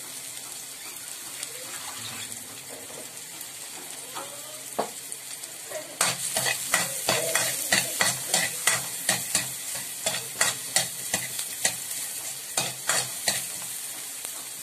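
Chopped garlic and onion sizzling in a little oil in a stainless steel wok. From about six seconds in, a spatula stirs and scrapes against the wok in quick repeated strokes, which stop near the end.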